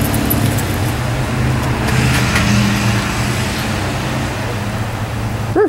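Steady low engine-like rumble, as of a motor vehicle running close by. Just before the end a short pitched sound slides up and down, then everything cuts off suddenly.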